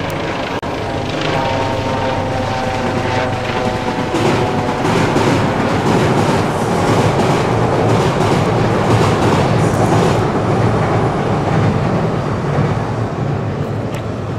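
Electric commuter train crossing a steel girder railway bridge. It makes a loud rumble throughout, with a whine of several steady tones in the first few seconds and a rapid clatter of wheels over the rail joints through the loudest middle stretch.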